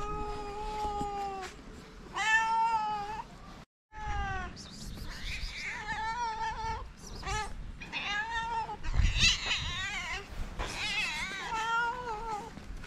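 Several street cats, calicos among them, meowing over and over in long, drawn-out meows that overlap from about the middle on; cats begging for food and attention.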